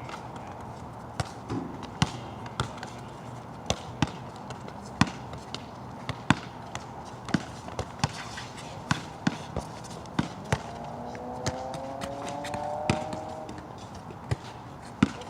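Basketball bouncing on a wet outdoor court, sharp irregular bounces one or two a second, over a steady hiss of rain. A faint rising tone joins in about ten seconds in and lasts around three seconds.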